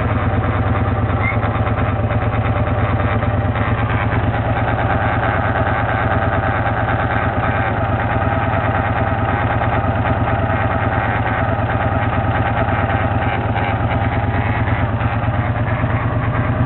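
Motorcycle engine idling steadily, carrying an odd noise that the owner is trying to trace.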